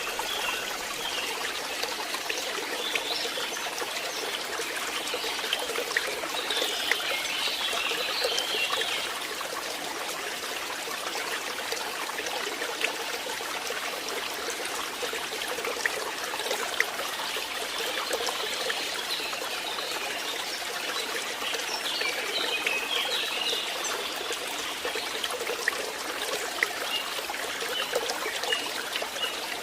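Small stream trickling and babbling steadily, with a few brief high chirps now and then.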